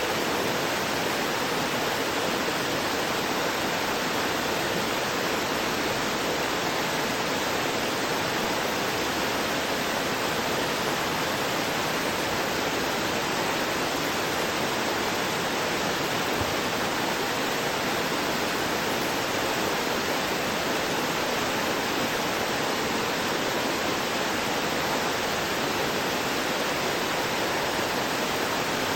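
Small stream gurgling steadily as water runs over and between rocks.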